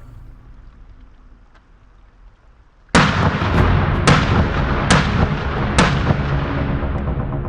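Gunshots from a firearm: a sudden loud shot about three seconds in, then three more at roughly one-second intervals, each with a trailing echo.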